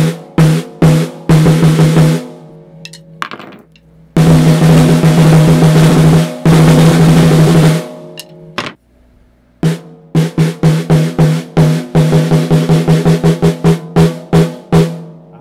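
Mapex Armory Exterminator 14x6.5 birch/walnut snare drum played with sticks, its top head tuned up a little to tighten a fat sound without choking the snare wires. First a few single hits and a short roll, then two long rolls about four to eight seconds in, then a run of quick strokes from about ten seconds on. A clear ringing pitch sounds under every stroke.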